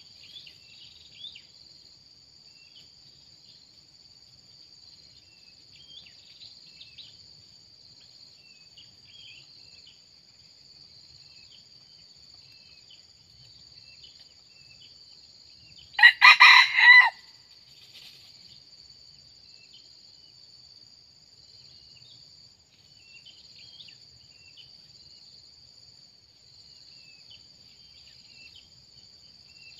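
A red junglefowl rooster gives one short crow of about a second, in three quick parts, about halfway through. Under it, a steady high-pitched insect drone and faint scattered chirps.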